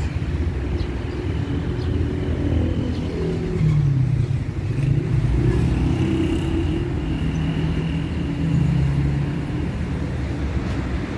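Street traffic: a nearby motor vehicle's engine running, its pitch rising a few seconds in as it speeds up, then holding steady.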